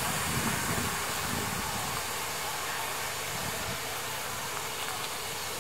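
Steam locomotive No. 824, standing in steam, gives off a steady hiss with a faint low hum beneath it.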